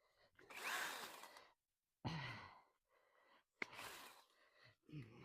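A woman breathing hard and sighing: four heavy out-of-breath exhalations in a row, some ending in a low falling groan.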